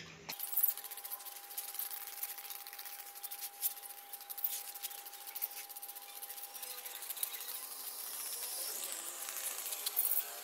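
Hand-held trigger spray bottle squirting onto plant leaves: repeated quick hissy squirts with small trigger clicks. A faint steady high whine runs underneath and stops about two seconds before the end.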